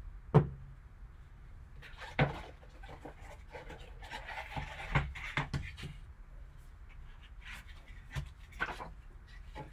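Cardboard box handled with gloved hands and its lid slid off: a few sharp knocks as the box is set down and tapped, with cardboard rubbing and scraping in between.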